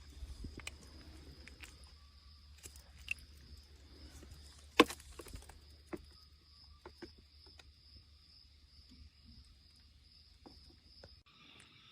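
Steady high insect chirring in a field, with scattered clicks and knocks, one sharp click about five seconds in. Near the end the background changes abruptly to a different insect chorus.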